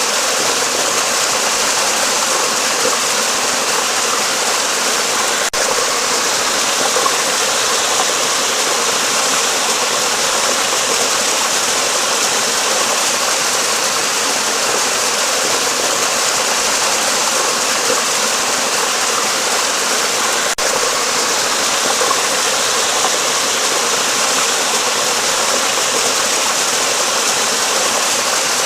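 Flowing water rushing under a bridge: a steady, even hiss with little low rumble, broken only by two split-second dropouts.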